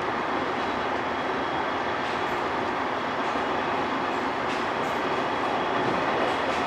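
Steady running noise inside a KiHa 187 series diesel express railcar under way: an even rumble and hiss, with a couple of faint clicks about two-thirds of the way through.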